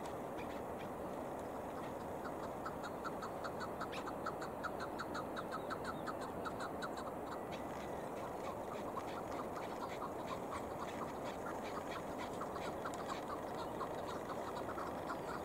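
Chukar partridges calling: rapid runs of short clucking chuck notes, about five a second, one run starting about two seconds in and another after about nine seconds, over a steady rushing background noise.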